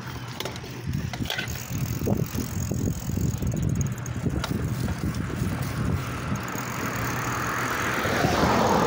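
Wind buffeting a phone's microphone during a bicycle ride, an irregular low rumble. A broader rushing noise swells near the end.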